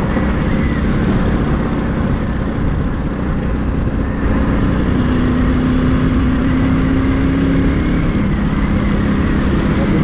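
Motorcycle engine running steadily while riding, with wind rushing over the microphone. The engine note rises slightly about five seconds in and settles back near eight seconds.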